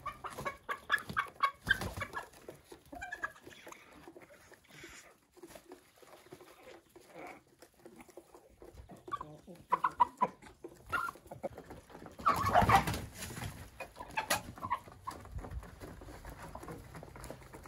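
Domestic chickens clucking, with short scattered calls from the flock. A louder rustling burst comes about twelve seconds in.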